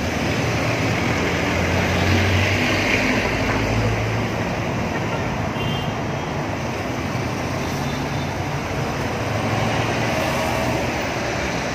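Steady road traffic: cars, a jeepney and motorcycles passing in several lanes, a continuous mix of engine hum and tyre noise.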